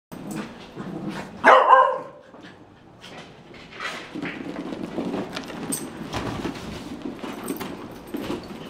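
A small dog barks once, loudly, about a second and a half in, followed by the quieter, busy sounds of several small dogs playing.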